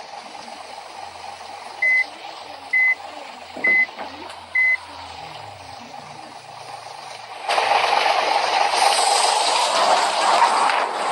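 Four short, high electronic beeps evenly spaced a little under a second apart, like a reversing alarm. Then, about two-thirds of the way in, a loud steady rushing hiss starts abruptly.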